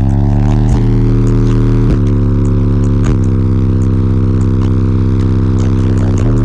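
Eight Concrete Audio C1 12-inch subwoofers on a Taramps T12000 amplifier playing loud, sustained deep bass notes, stepping to a new pitch every one to three seconds.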